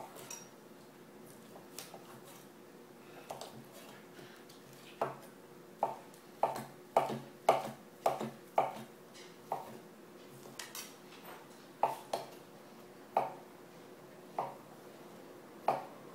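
Kitchen knife chopping chicken on a cutting board: a series of sharp knocks of the blade striking the board. A few scattered knocks at first, then a run of about two a second through the middle, slowing again toward the end.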